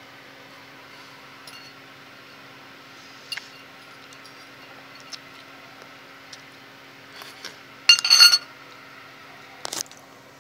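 A metal fork clinking against a ceramic dinner plate: a few light taps, then a loud ringing clink about eight seconds in and a shorter one just before the end. A faint steady hum runs underneath.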